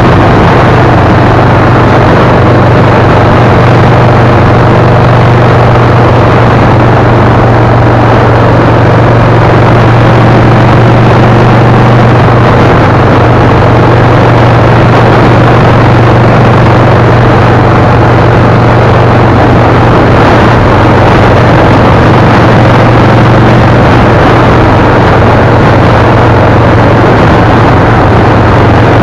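Vehicle cruising at steady highway speed: a constant engine hum under a loud, even rushing noise of wind and road, with no change in pitch or speed.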